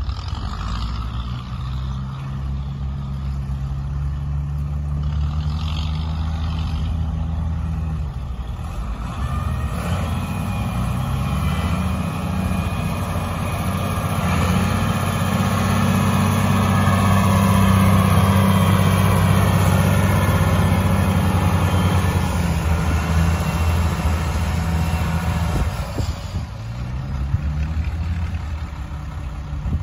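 Ford 8340 tractor's six-cylinder turbocharged diesel engine working under load as it drags a rear blade through soil. Its pitch rises and falls as the load and throttle change. It is loudest a little past the middle, dips near the end, then picks up again.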